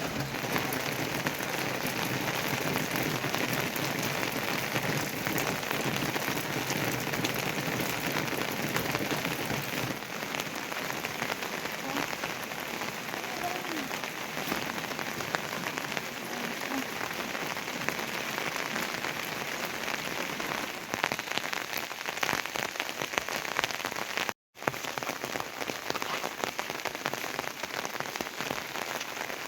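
Steady rain falling, a dense patter of countless drops striking a surface. The sound cuts out for a moment about 24 seconds in.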